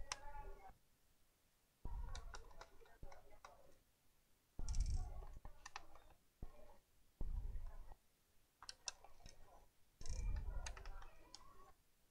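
Light clicks and small scraping and handling noises as a screwdriver works screws out of a Samsung NP-300E laptop's plastic underside. The noises come in several short bouts with quiet gaps between them.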